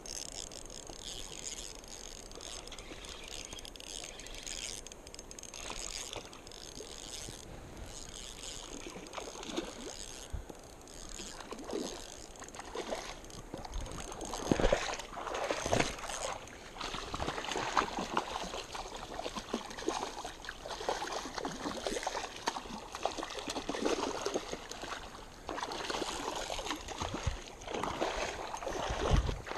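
River water lapping and sloshing at the edge of a rocky bank. From about halfway it grows louder, with irregular splashes, the loudest near the end as a hooked trout splashes at the surface near the bank.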